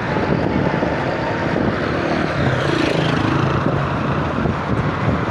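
Steady rumble of a moving vehicle.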